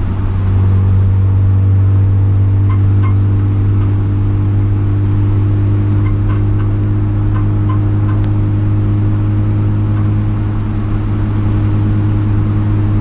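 A race car's engine heard from inside its stripped cabin, running steadily at low, constant revs while cruising at caution pace behind the pace car. A few light clicks or rattles come through about three seconds in and again around the middle.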